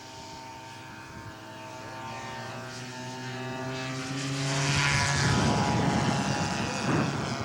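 Radio-controlled scale model airplane's propeller engine in flight, a steady drone that grows louder as the plane comes closer and is loudest about five seconds in.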